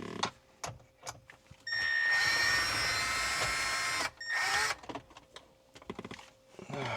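Cordless drill/driver running steadily for about two and a half seconds, backing out a mount screw, then a short second burst. Light clicks and rattles of the screws and plastic trim come before and after.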